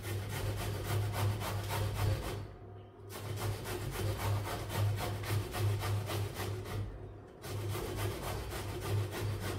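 A vegetable being grated on a box grater: quick rasping strokes about three a second, with two short breaks, over a steady low hum.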